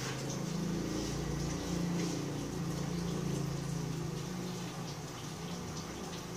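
Steady low machine hum with a continuous airy hiss, as from a small motor or blower running.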